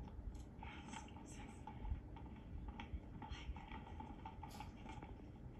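Faint television drama audio played through a TV speaker in a small room: a quiet scene with a couple of brief, soft spoken greetings over room tone.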